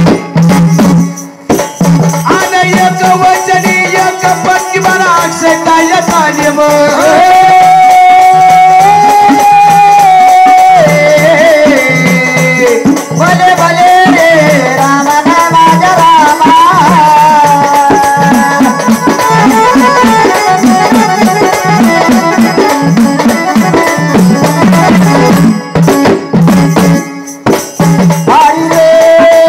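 Marathi jagran-gondhal folk devotional music: a held melody line that steps and glides in pitch, over a steady drum beat with rattling percussion.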